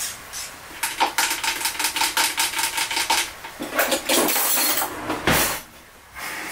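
Metal cutlery and kitchen utensils clinking and rattling as a kitchen drawer is rummaged through, a quick run of many clinks, followed by a single louder knock about five seconds in.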